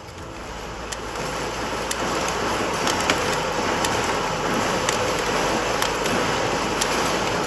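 Nut-and-bolt assembly machine running: a steady mechanical din with scattered sharp metallic clicks from the spindle and parts. It fades in over the first couple of seconds.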